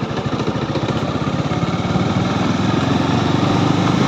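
Single-cylinder motorcycle engine running at low road speed, heard from the rider's seat, its quick, even firing pulses growing a little louder, with wind hiss over it.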